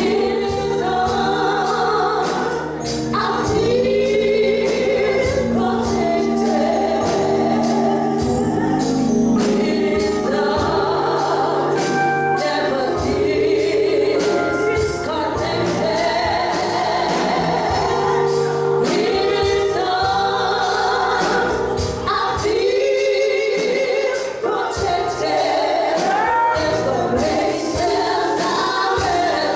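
Congregation or choir singing a gospel song with a band, drums keeping a steady beat.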